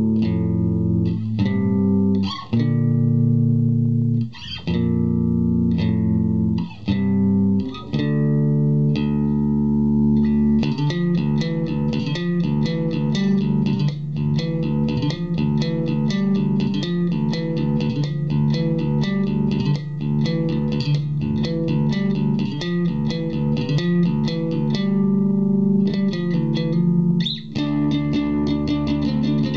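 Fender Jazz Bass played through an Orange Terror Bass 1000-watt valve and solid-state hybrid head, set with a little gain breakup, the mids scooped out and the treble boosted. Slower held notes for about ten seconds, then a fast, busy run of notes with bright, clicky attacks.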